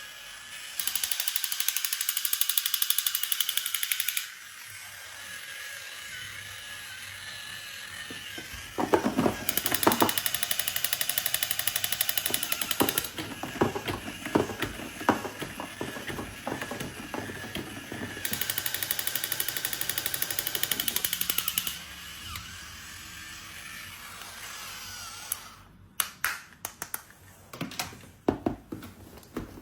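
A small motor buzzing in three bursts of about three and a half seconds each, drill-like, with a faint wavering tone underneath. Scattered clicks and knocks come in the middle and again near the end.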